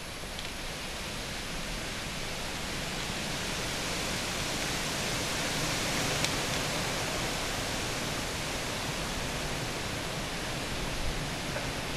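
Steady outdoor rushing noise that swells gently toward the middle, with a faint click about six seconds in.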